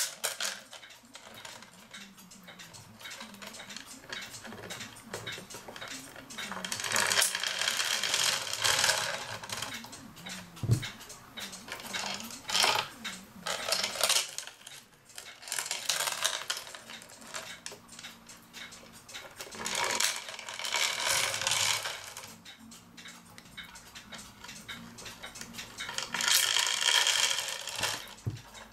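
Metal cuckoo clock chains jingling and clinking in several spells as they are handled and fed through the holes in the wooden clock case. A single low thump comes about ten seconds in.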